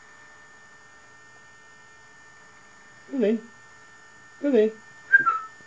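Steady electrical hum throughout, with a woman's voice calling a cat in short questioning calls about three seconds in and again twice near the end, the last with a brief high-pitched gliding sound.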